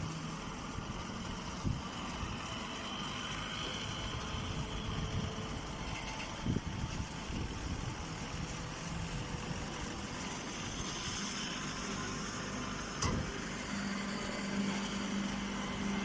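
Steady running hum of a chopped-straw baling machine at work, its motor and conveyor going, with a low drone that strengthens near the end and a single short click partway through.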